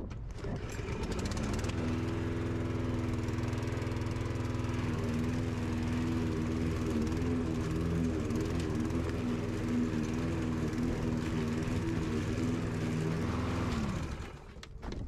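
Walk-behind petrol lawn mower's single-cylinder engine running at a steady speed. Near the end its pitch falls and it winds down to a stop.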